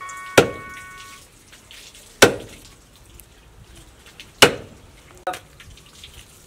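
Cleaver chopping bone-in wild boar meat on a wooden log chopping block: three heavy strikes about two seconds apart, then a lighter one.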